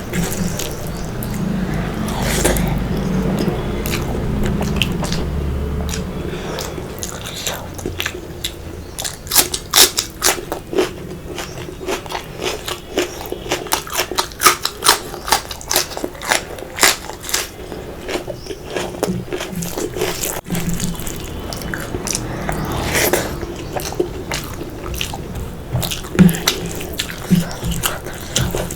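Close-up eating sounds: chewing with many sharp, crisp crunches, coming thickest in the middle stretch, from a person eating fish curry with rice, raw onion and green chili.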